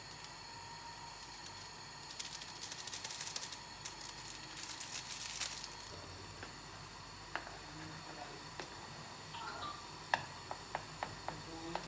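Close handling noises in a small room: a stretch of crackly rustling, then a quick run of sharp clicks near the end.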